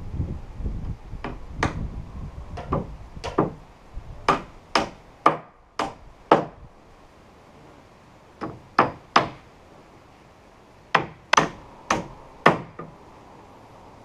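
Hammer driving nails into wooden roof battens: sharp blows roughly two a second, in three runs with pauses between, a long run of about eleven blows, then three, then four.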